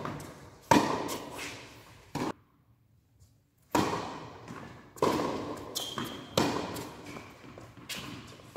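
Tennis ball struck with rackets and bouncing on an indoor hard court, each hit a sharp pop followed by a long echo from the large hall. The rally stops about two and a half seconds in, and after a short near-silent gap a new point starts, with hits coming about once a second.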